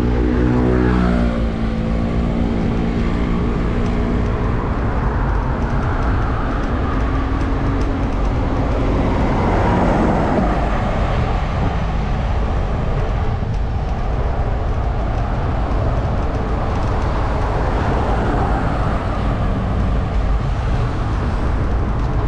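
Road noise while travelling along a city road: a steady low rumble of wind and tyres, with a vehicle engine note falling in pitch over the first few seconds and a louder rushing swell about ten seconds in.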